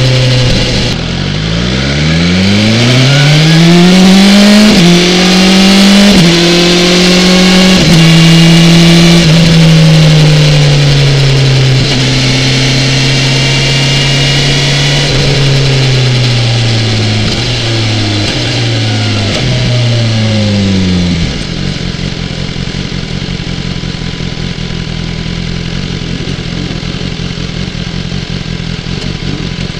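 BMW S1000XR's inline-four engine pulling hard from low revs and shifting up through a couple of gears, each shift a short drop in pitch. It then holds a steady speed and slows with a run of quick downshifts, each a brief rise in revs, before settling to a low steady idle about two-thirds of the way through.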